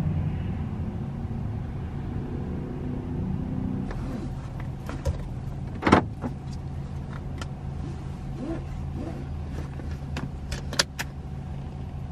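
A car idling, heard from inside the cabin as a steady low hum. Over it come scattered light clicks and taps from about four seconds in, with a sharper knock about six seconds in and another near the end.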